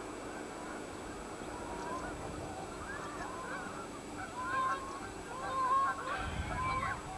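Birds calling: a string of short calls, sparse at first, then busier and louder from about three seconds in. A low rumble comes in about six seconds in.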